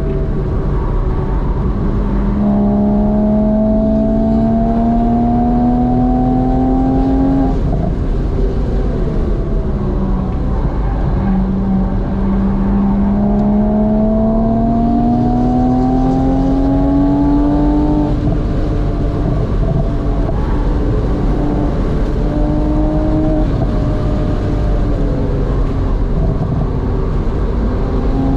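Porsche Boxster 986 S's 3.2-litre flat-six heard from inside the cabin under hard acceleration. The engine note climbs in two long pulls, breaking off after each, then runs steadier near the end over constant road and wind noise.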